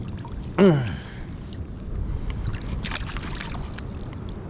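A man's short exclamation falling in pitch about half a second in, over a steady low rush of the river around the waders, with a brief noisy burst about three seconds in.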